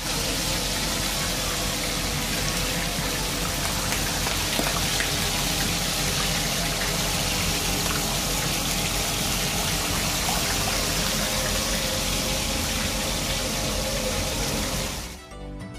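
Quartered duck frying in hot cooking oil in a wide pan, a steady dense sizzle that cuts off suddenly near the end.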